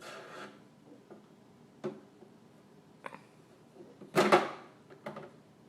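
Condiment bottles and jars being handled in an open refrigerator: a few separate knocks and clinks as they are moved and set down on the shelves, the loudest about four seconds in.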